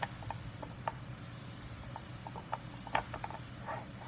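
Light metal clicks and taps, a dozen or so at irregular intervals, as the steel slide of a Toolex vise segment is handled and fitted back into the segment, over a steady low hum.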